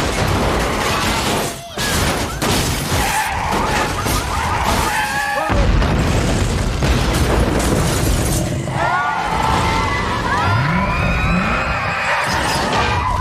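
Earthquake disaster sound effects: a continuous low rumble with crashing, shattering debris and booms, layered with music. Short squealing glides come in over the second half.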